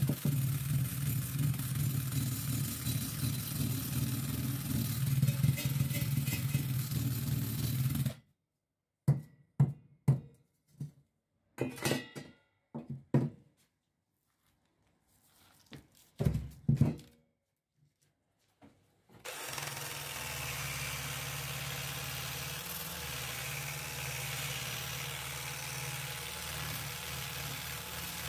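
Cordless drill spinning a wire brush against rusty sheet metal, running steadily with a scratchy hiss. It stops after about eight seconds, leaving silence broken by a few knocks and clatters of tools being handled. About nineteen seconds in, the wire brush runs again, scrubbing the metal housing of an old electric motor.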